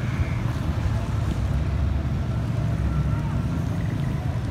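Wind buffeting the microphone in a steady low rumble, over a wash of rain on a flooded street.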